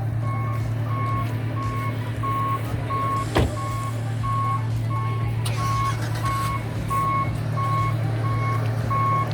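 A reversing vehicle's back-up alarm beeping steadily, about two beeps a second, over a constant low engine hum. One sharp click about three and a half seconds in.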